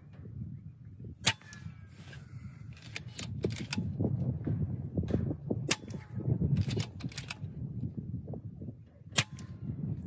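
Moderated .22 PCP air rifle, an RTI Prophet, firing 25.39-grain pellets over a chronograph: a sharp, short shot about a second in and another near the end, with fainter clicks between. The shots are subsonic, at about 880 fps.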